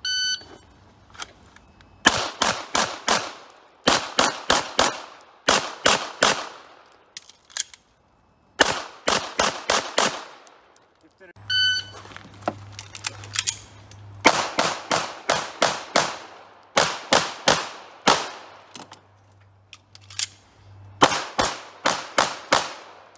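A shot timer beeps, then pistol shots follow in rapid strings of several shots with short pauses between strings. A second timer beep about eleven seconds in starts another run of rapid pistol fire in strings.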